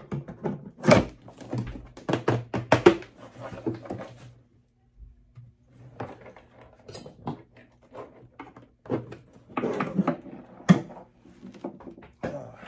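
Subwoofers being handled: a run of knocks and clunks as a 10-inch car-audio woofer is worked into a saddlebag subwoofer enclosure and lifted out. After a short lull about four seconds in, more clunks follow as the woofers are moved and set down. A low steady hum runs underneath.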